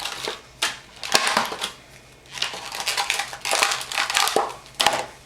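Paper and plastic packaging crinkling and rustling as it is handled, in irregular bursts with a few sharp clicks.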